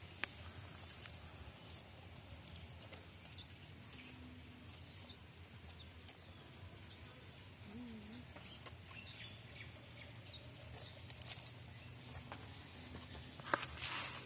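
Quiet rural outdoor background with faint, scattered bird chirps around the middle, a few soft clicks, and a short burst of rustling near the end.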